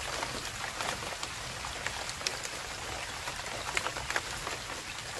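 Light rain falling on the water of a shallow ditch: a steady hiss dotted with many small drop ticks.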